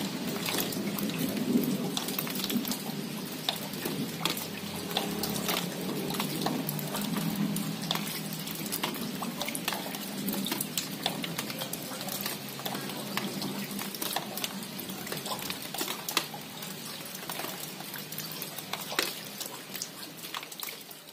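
Steady rain falling, with many separate drops tapping close by and a low rumble under it in the first several seconds. It fades down near the end.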